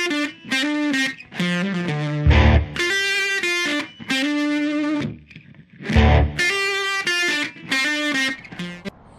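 Intro music: distorted electric guitar chords held in phrases of about a second, with deep booming hits about two seconds in and again about six seconds in. The music stops about nine seconds in.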